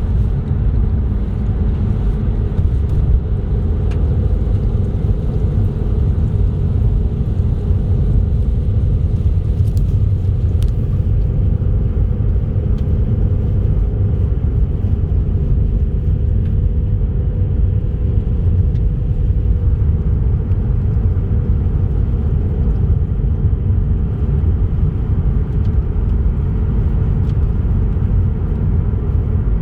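Steady low road rumble of a car driving on a highway, engine and tyre noise running evenly with no change in speed.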